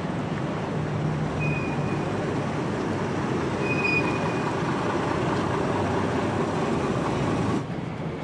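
A steady, dense rumble and hiss, like vehicle or train noise, that drops off abruptly about seven and a half seconds in.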